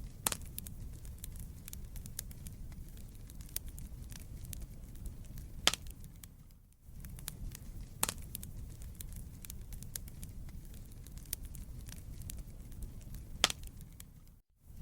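Wood fire crackling in a fireplace: a steady low rumble of flames under constant small snaps, with a few louder pops. The sound drops out briefly twice, about halfway through and near the end.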